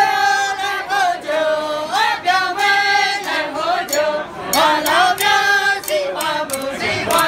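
A small group of men and women singing together on one tune, in phrases of long held notes.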